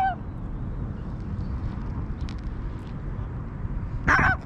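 Steady low rumble of street traffic, with one short, loud call about four seconds in.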